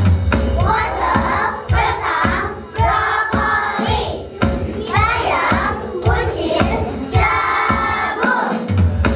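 A group singing a song together over music with a steady beat.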